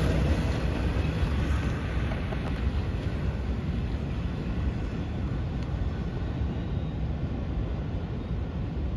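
Low rumble of a passing train, easing off over the first couple of seconds, then holding steady.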